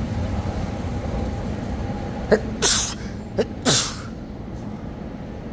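A man sneezes twice, about a second apart, each a short hissy burst that is the loudest sound here, over a steady machinery hum.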